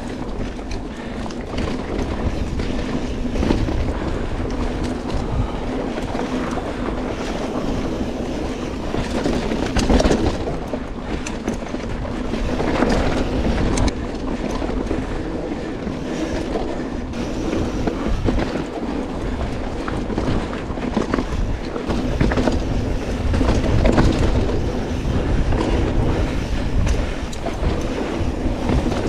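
Mountain bike rolling fast down a dirt singletrack: steady tyre noise on the dirt with frequent clattering knocks and rattles as the bike hits bumps.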